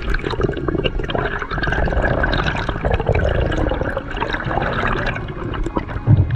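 Water rushing and bubbling, a dense steady wash with many small crackles.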